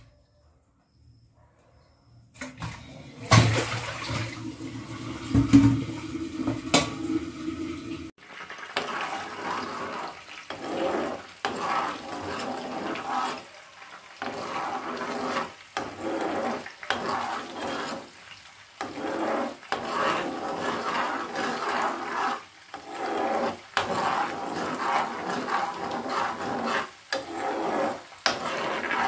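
Butter boiling and sizzling in a frying pan as it cooks down into ghee, a crackling bubbling that swells and dips unevenly. A few knocks over a low hum come first, before the sizzling starts about eight seconds in.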